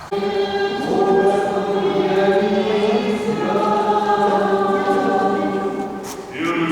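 Choir singing a slow Orthodox church chant, several voices on long held notes. It begins abruptly and moves to a new chord near the end.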